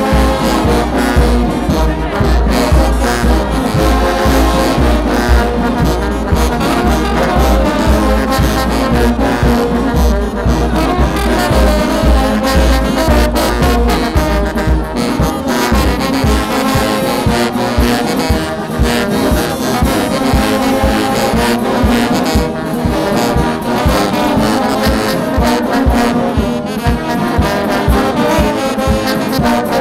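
Brass band music with trombones and trumpets. A steady low rumble beneath it gives way about halfway to a regular beat in the bass.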